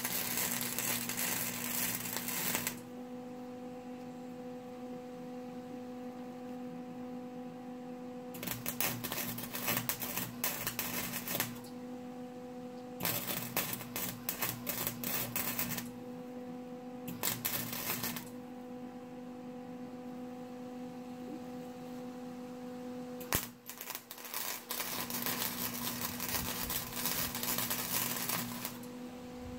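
Arc welder crackling and sizzling as beads are laid on a steel muffler, in five runs of one to five seconds with pauses between them and a sharp click just before the last, longest run. A steady hum sounds underneath throughout.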